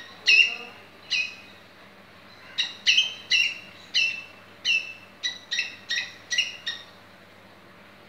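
A squirrel calling from a tree: loud, short, sharp chirps. Two come in the first second or so, then after a pause a run of about ten, two or three a second, stopping about seven seconds in.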